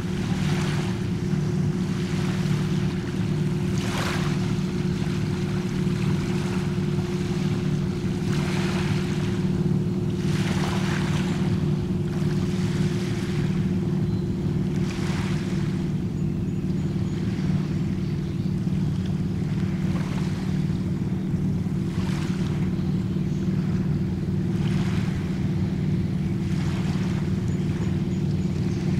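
A steady low engine drone at an even pitch, with small waves washing onto the shore every two to three seconds.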